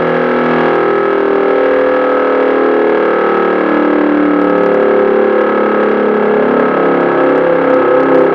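Low-tone unit of an old L138 three-port air-raid siren sounding a steady, loud howl, rich in overtones, as part of the German 'Feueralarm' signal calling out the fire brigade.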